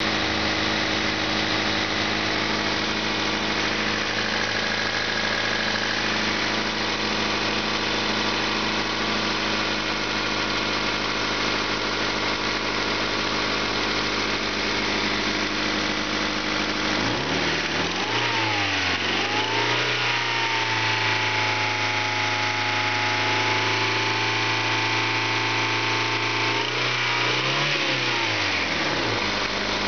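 1997 Honda Civic four-cylinder engine running on test, idling steadily at first. About two-thirds of the way in it is revved up, held at a raised speed for several seconds, then let fall back towards idle near the end.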